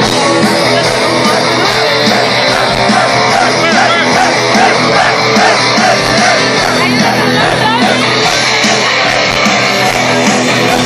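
Rock band playing live at full volume through a stadium sound system, recorded from inside the crowd, with fans yelling and singing along.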